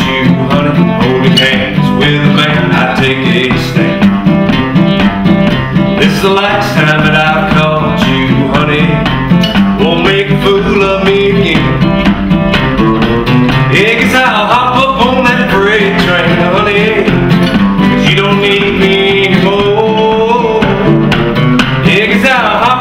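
Two acoustic guitars strumming and picking a country song, with a man singing over them.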